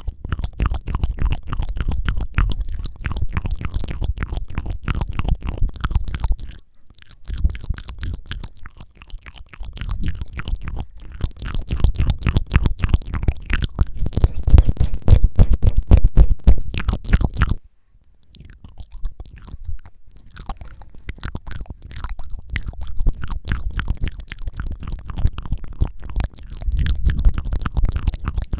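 Close-miked ASMR mouth sounds: rapid, wet tongue fluttering and flicking, a dense stream of clicks with a deep rumble from the microphone's closeness. It stops briefly about seven seconds in and again about eighteen seconds in.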